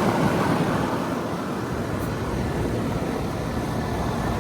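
Central air conditioner outdoor units running in cooling mode: the steady, even noise of the condenser fans and compressors.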